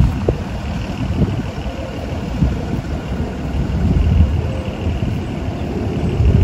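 Low rumble of a motor vehicle's engine running close by, swelling about four seconds in.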